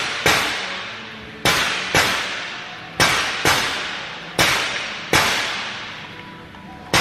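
A series of loud sharp bangs, about nine in all, one every half second to a second. Each dies away in a long echo around a large room.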